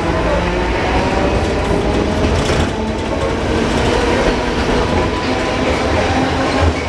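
Milan 1928 Peter Witt-type "Ventotto" tram running along its street track, heard from inside the car: a steady low rumble of wheels on rail with a faint steady whine above it.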